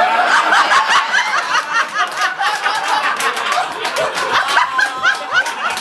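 Audience laughing at a punchline, many voices overlapping, with some clapping.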